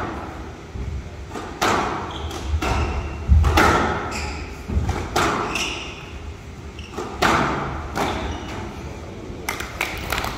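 Squash rally: sharp thuds of racket strikes and the ball hitting the walls, about one a second with pauses, and a few short shoe squeaks on the court floor. Near the end the rally finishes and the audience starts clapping.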